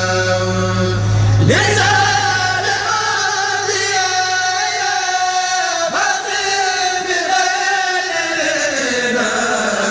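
Male voices chanting an Arabic Sufi religious poem (a Mouride khassida) in long, drawn-out melodic lines, with a new phrase beginning about a second and a half in.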